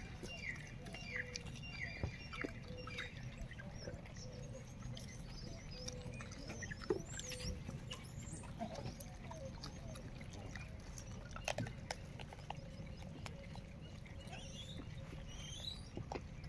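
Outdoor ambience around gray langurs feeding on bananas: a steady low rumble with scattered small clicks and rustles, and a quick series of short falling chirps in the first few seconds.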